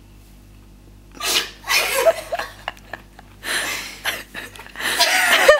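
A sleeping person snoring and snorting loudly, three noisy breaths about two seconds apart.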